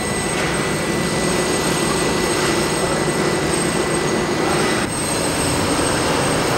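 Construction machinery running with a loud, steady drone and a thin high whine throughout; the mix shifts slightly about five seconds in.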